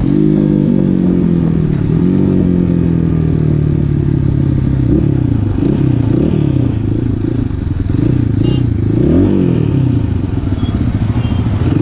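Asian Beast 250 dirt bike's 249 cc four-stroke air-cooled single-cylinder engine under way, its note falling as the bike slows over the first few seconds. It then rises and falls several times with throttle blips and gear changes while pulling through slow traffic.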